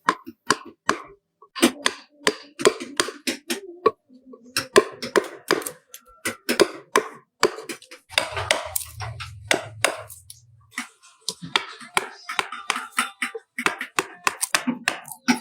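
Woodcarving chisel being driven into wood with a wooden mallet: quick, irregular sharp taps, several a second, in runs with short pauses. A low hum sounds for a couple of seconds midway.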